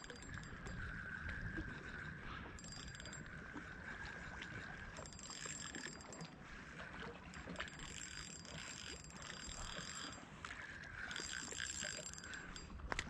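Spinning reel being cranked steadily as a hooked fish is reeled in on ultralight tackle. It is faint, with a steady whir and patches of higher hiss coming and going.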